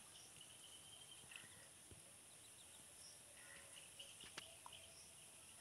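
Near silence: faint steady hiss with a few faint, short high-pitched chirps and a couple of faint clicks.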